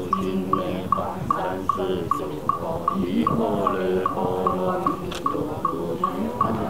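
A group of voices chanting Buddhist liturgy in unison, kept in time by a wooden fish (muyu) struck in a steady beat of about two and a half knocks a second.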